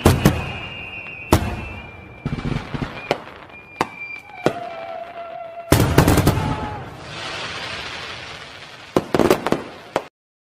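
Fireworks going off: sharp bangs with crackling between them, dense clusters of bangs about six seconds in and again near nine seconds, ending abruptly about ten seconds in.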